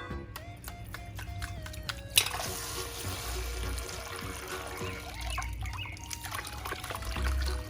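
Background music with held tones and a low pulsing bass, with a run of sharp clicks in the first two seconds.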